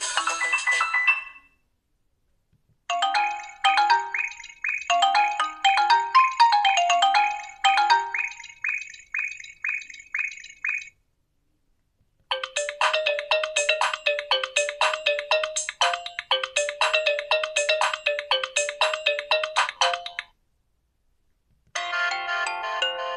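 Nokia 2780 Flip playing its default KaiOS ringtones one after another. The end of one tune is followed by two short electronic melodies of about eight seconds each, separated by brief silences, and a third begins near the end.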